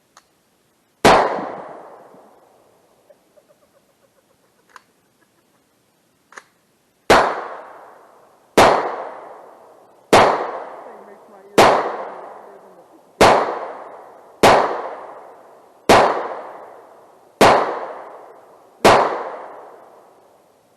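Semi-automatic rifle fired ten times: a single shot about a second in, then a steady string of nine shots about a second and a half apart, each followed by a long echo. A few faint clicks come between the first shot and the string.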